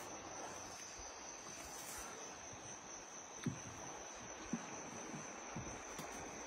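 Steady high-pitched insect trill in the background, with two soft thumps about midway through.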